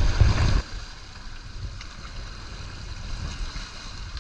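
Wind buffeting the microphone on a sailboat underway, cutting off suddenly about half a second in and leaving a quieter, steady rush of wind and water.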